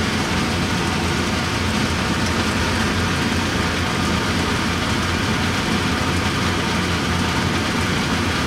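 Steady running of an electric motor: a constant low hum under an even rushing noise, with no change in pace.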